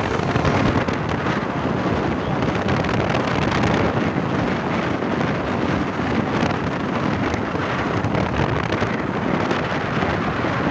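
Intercity bus engine and modified 'ngorok' exhaust running with a steady, dense rumble, with wind buffeting the microphone.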